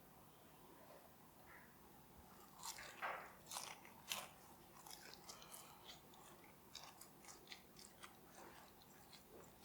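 Biting into crispy double-fried chicken karaage: a few loud crunches, then a run of lighter crunches while chewing.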